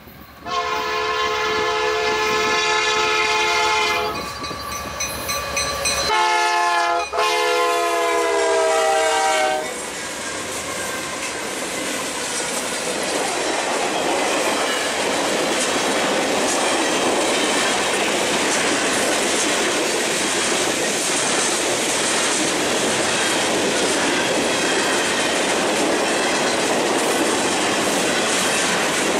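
CN freight train's diesel locomotives sounding the multi-chime air horn in several blasts over the first ten seconds for a grade crossing, the later blasts dropping slightly in pitch as the locomotives pass. Then the steady rumble and clatter of freight cars rolling by on the rails.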